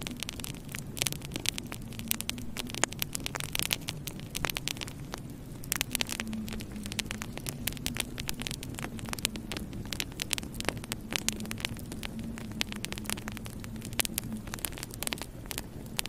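Wood fire burning in a fireplace, its logs crackling with frequent sharp pops and snaps, over a low steady hum.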